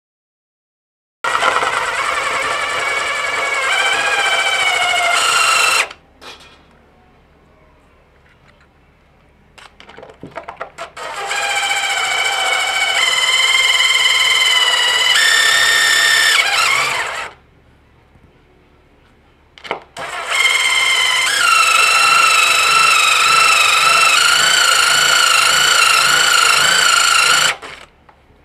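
Cordless impact driver spinning a 1/4-inch Milwaukee diamond hole saw bit as it grinds a hole into hard porcelain floor tile kept wet with water. It runs as a loud, steady whine in three runs of several seconds each, with short pauses and brief blips of the trigger between them.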